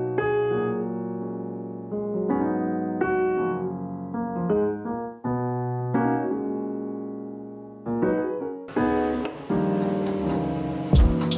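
Background piano music: a slow run of struck notes and chords, each ringing out and fading, with a fuller arrangement coming in near the end.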